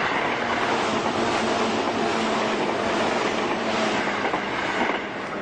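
Train noise at a station platform: a steady, dense rail rumble and hiss that drops off about five seconds in.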